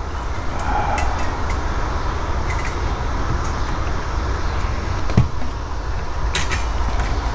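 Light clicks and taps from the metal brackets, plastic parts and a CD being handled inside an opened Blaupunkt 6-disc CD changer mechanism, with a dull knock about five seconds in and a sharper click about a second later. A steady low hum runs underneath.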